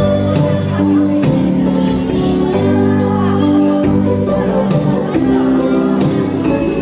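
A Christmas song playing, with sustained melody notes over percussion keeping a steady beat.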